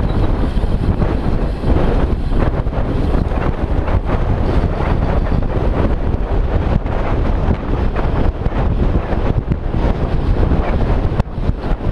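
Wind buffeting the microphone of a camera on a moving bicycle: a loud, steady low rumble that flutters constantly.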